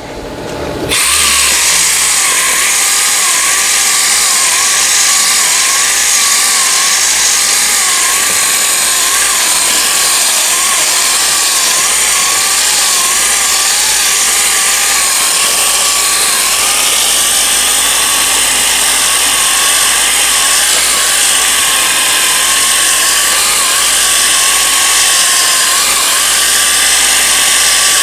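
8-inch orbital sander with 40-grit paper starting up about a second in and running steadily, sanding short-strand fibreglass body filler; its whine wavers slightly in pitch.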